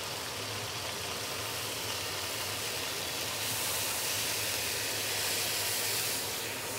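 Rice wine poured into hot oil in a wok around a fried whole red snapper, giving a steady sizzling hiss that grows brighter and a little louder from about halfway through, over a steady low hum.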